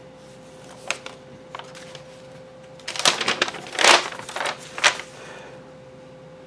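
Paper sheets of a kit's instruction drawings being handled: a few light clicks, then a burst of rustling and crinkling in the middle, over a faint steady hum.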